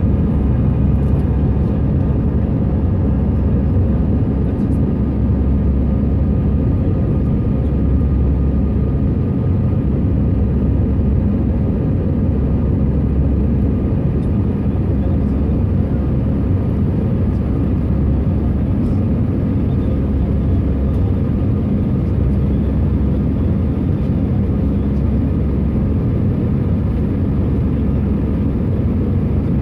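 Inside the cabin of an Airbus A319-111 climbing after takeoff: its CFM56-5B turbofan engines and the airflow make a loud, steady noise with a few faint steady tones over it.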